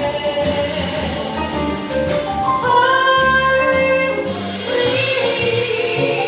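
Live band playing a slow, jazzy torch-song accompaniment, with long held notes over a steady low rhythm.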